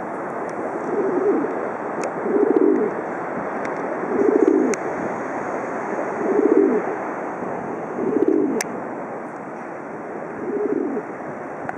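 Rock pigeon (white domestic dove) cooing: a low, throaty, pulsed coo repeated about every two seconds, six times, over a steady hiss of surf.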